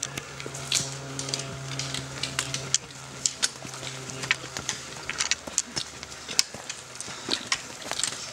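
Irregular sharp clicks and taps of hikers' footsteps and trekking-pole tips on a rocky trail, with a steady low hum for about the first five seconds.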